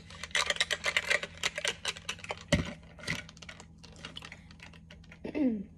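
Ice cubes clinking against a glass bottle as a drink is stirred with a straw: a fast run of small clicks, a dull knock about two and a half seconds in, then sparser clicks. A short falling voice sound comes near the end.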